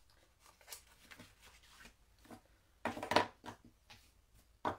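Scattered clicks, knocks and rustles of objects being handled on a desk, with a louder cluster of rustling knocks about three seconds in and a single sharp knock near the end.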